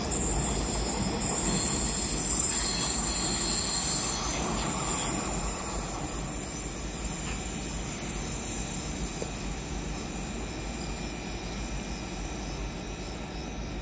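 Train running through a railway station with its wheels squealing on the rails, the sound slowly fading.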